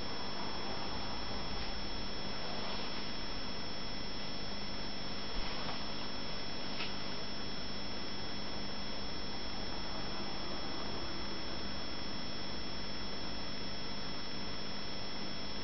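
Aquarium air bubbles and tank equipment running: a steady hum and hiss, with a faint click or two about five and seven seconds in.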